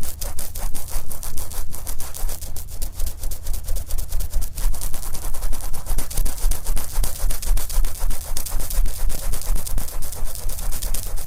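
Wet, oiled cotton swab rubbing over the outer ear of a binaural microphone: fast, continuous crackling rubbing strokes with low thuds of contact on the mic.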